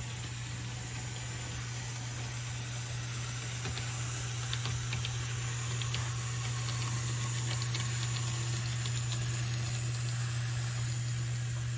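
Steady low electrical-sounding hum under an even hiss, with a few faint light ticks scattered through the middle.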